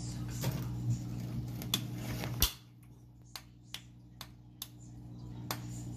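Peacock mantis shrimp striking at a red claw crab: a string of sharp clicks, about nine, the loudest about halfway through, over a steady low hum.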